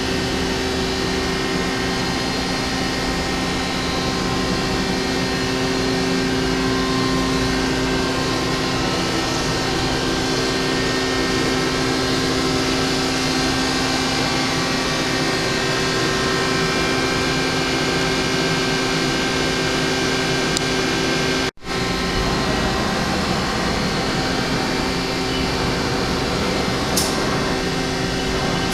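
Steady machine-shop hum of CNC machining equipment running, a mix of constant tones over noise, broken by a brief cut about two-thirds of the way through and a short high click near the end.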